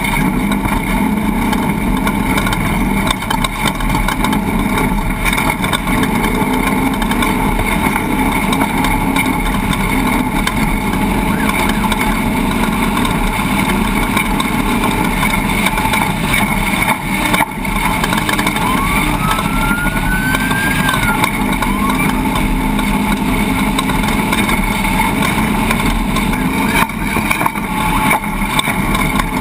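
Steady engine noise, running without a break, with a short rising tone about two-thirds of the way through.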